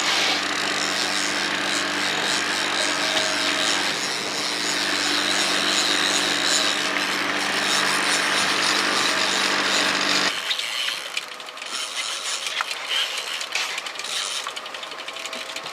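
Boat motor running steadily under a broad rushing hiss of wind and water, which stops abruptly about ten seconds in; a quieter hiss with scattered clicks follows.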